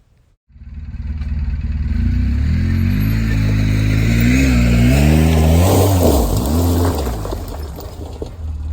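2005 Polaris Sportsman 800 ATV's twin-cylinder engine starting up about half a second in, revving up and down several times, then settling back to a lower, steady run. It runs smoothly, without the earlier popping and backfiring, now that the fuel pump has been replaced.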